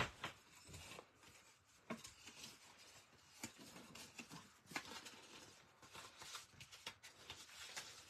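Faint, scattered rustles and light taps of cardstock and patterned paper being handled and folded by hand.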